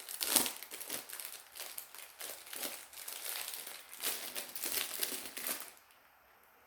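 Plastic packaging crinkling and rustling in irregular bursts as an item is unwrapped by hand, stopping about six seconds in.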